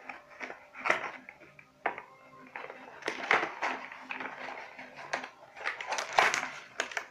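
A lens kit's packaging being opened by hand: irregular rustling, crinkling and clicking, in short bursts of varying loudness.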